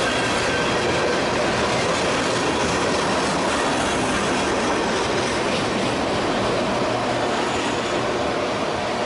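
Freight cars of a mixed manifest train, covered hoppers and autoracks, rolling past close by: a steady, dense noise of steel wheels on rail.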